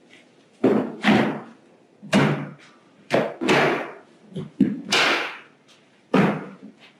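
A series of about ten irregular thumps and knocks as parts and equipment are set into a box and the box is handled.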